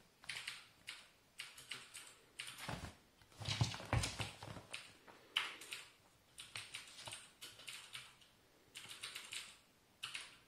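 A kitten's claws scratching and scrabbling at a ribbed fabric rug and the wooden floor beneath it, in a string of short scratchy bursts, with a few soft thumps about four seconds in as it rolls and pounces.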